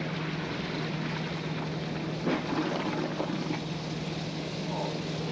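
Vintage automatic washing machines running, a steady motor hum under the churning and sloshing of wash water.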